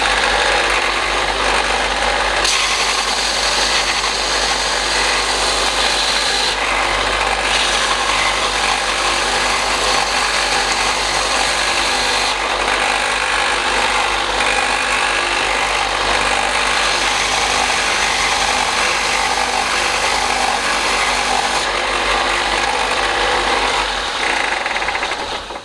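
Sorby Pro Edge belt sharpening grinder running steadily, with stretches of brighter, hissier grinding noise, then running down near the end.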